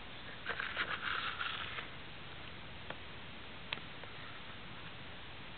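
Close handling noise: a patch of soft rustling and scraping with small clicks, starting about half a second in and lasting about a second and a half, then a steady hiss with two faint single clicks.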